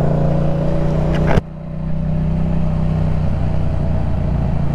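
Yamaha MT-07's 689 cc parallel-twin engine running steadily under way, with a rumbling stack of tones. About a second and a half in the level and the hiss drop sharply, then slowly build again while the engine keeps running.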